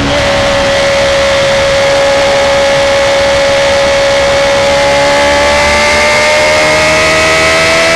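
A motorcycle engine held at high revs, with a shift down in pitch at the very start, then a steady note that slowly climbs over the last few seconds.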